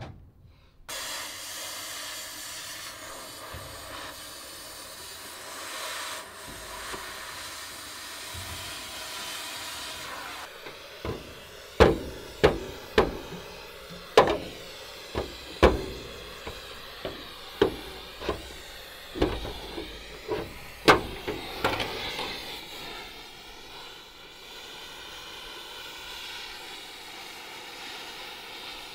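Gas cutting torch hissing steadily while cutting old truck sheet metal. In the middle comes a run of about fifteen sharp metal knocks, roughly one a second.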